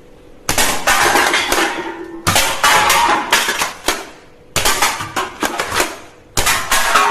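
A toy gun firing in four bursts of rapid clattering clicks, each about one and a half to two seconds long.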